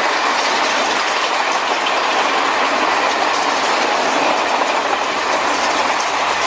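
ICF passenger coaches of an express train rushing past at speed: a steady rush of wind and wheel-on-rail noise with a clatter of wheels over the track.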